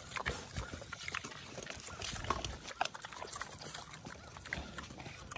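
Vietnamese potbelly pigs chomping on apple, a faint string of irregular wet crunches and smacks.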